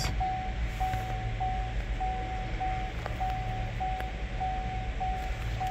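Car dashboard warning chime beeping over and over, about one and a half short beeps a second, over a steady low hum, with a couple of faint clicks.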